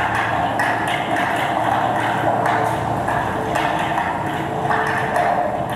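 Abstract sound design of a video installation: a dense, noisy electronic texture that shifts in short choppy blocks every fraction of a second, with brief ringing tones through it.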